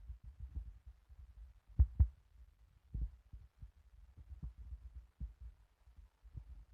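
Strong wind buffeting the microphone in low, irregular thumps, the loudest gusts about two and three seconds in.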